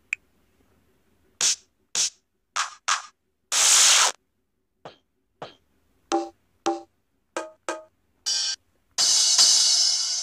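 Electronic drum-pad samples from a mobile phone octapad app, tapped one at a time: a dozen or so separate drum hits at an uneven pace, a few with a short pitched ring, and two longer hissing crashes, one about four seconds in and one near the end.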